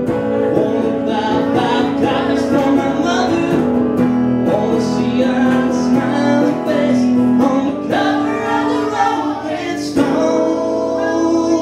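Live acoustic guitar strummed, with male and female voices singing a country-rock song. A strong strum about ten seconds in is left ringing.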